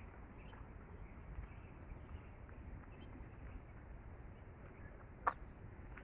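Faint, steady outdoor background noise, with one sharp tap about five seconds in.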